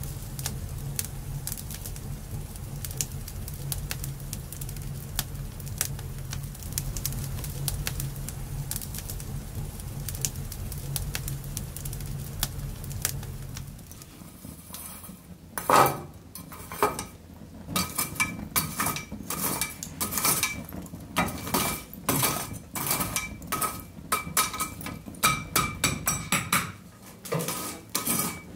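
Wood fire crackling with many fine pops over a low steady rumble. About halfway through this gives way to a run of sharp metallic clinks and scrapes with a ringing note, as metal tools work in the fireplace embers.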